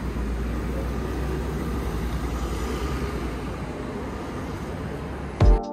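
A steady, low rumbling background noise with no clear pitch. Near the end, electronic music with heavy, thumping bass hits comes in.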